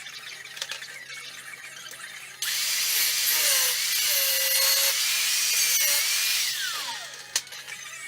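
A handheld electric power tool starts about two and a half seconds in and runs at full speed with a high whine that dips slightly under load. It is switched off about four seconds later and its pitch falls as it spins down. Quieter handling clicks come before it.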